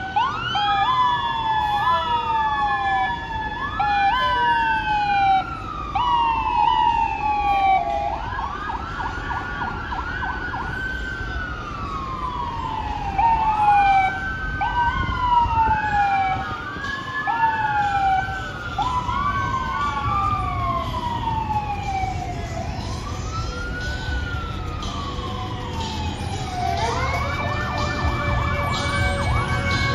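Fire engine sirens wailing as the trucks pass, several overlapping, each pitch rising quickly and then falling slowly over a couple of seconds. Near the end a long steady tone with several overtones joins in.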